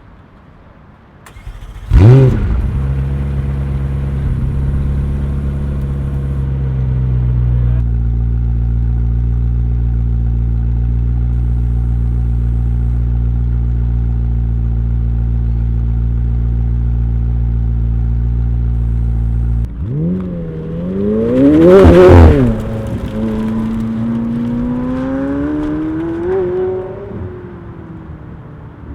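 McLaren 765LT's twin-turbo V8 starting with a loud flare about two seconds in, then idling steadily, its idle note stepping down about eight seconds in. Near the end it is revved sharply, the loudest moment, then revs up once more and fades as the car drives off.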